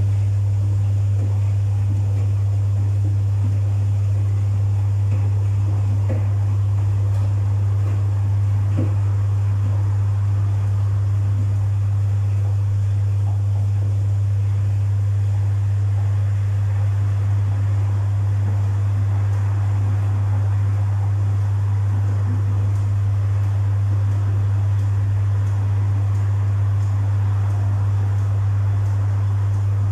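Domus 8 kg washing machine running with a steady low hum over an even rushing noise, unchanging throughout.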